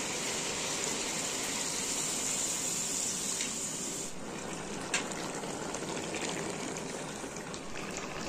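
Chicken pieces and gizzards sizzling steadily in a hot wok, the sizzle turning softer about four seconds in, with one sharp click about a second later.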